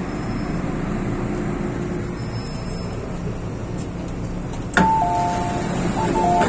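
MTR M-Train running with a steady low hum. About three-quarters of the way through, a click is followed by the train's two-note descending ding-dong chime, which plays twice.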